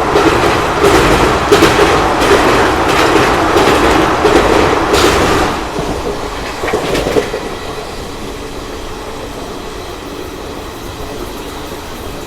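Train wheels running over a railway bridge: a loud rattling clickety-clack with rapid knocks from the rails and bridge. About halfway through it drops to a quieter, steady rumble.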